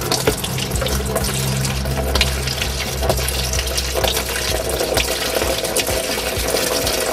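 A steady stream of fluid drained from the underside of a car, pouring and splashing continuously into a plastic tub.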